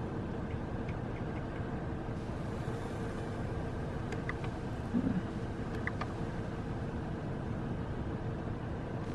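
Car interior noise while driving: a steady low road-and-engine rumble with a constant hum, and one brief louder low sound about five seconds in.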